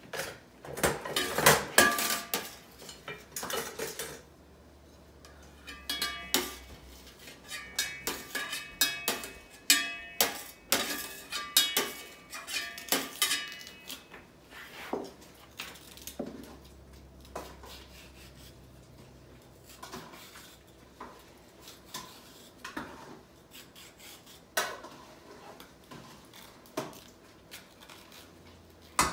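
Metal spoon scraping and knocking against a plate and a stainless steel cooking pot as food is tipped into the pot, with clinks of cookware. A run of ringing metal clanks comes between about six and thirteen seconds in, then sparser knocks.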